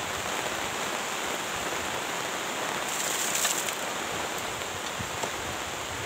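Steady hiss of light rain falling.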